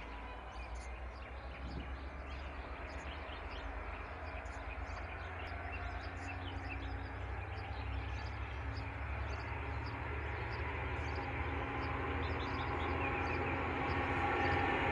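V/Line N class diesel-electric locomotive approaching with its train, its engine a steady low hum growing gradually louder. Birds chirp over it, mostly in the first half.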